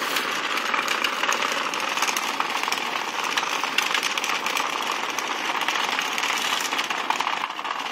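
Many Hexbug Nano vibrating micro-robots buzzing and rattling against the plastic tracks and walls of a Hexbug habitat set, a steady dense clatter.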